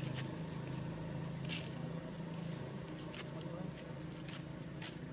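Outdoor ambience: a steady high-pitched insect drone over a faint low murmur of indistinct distant voices, with a few sharp clicks.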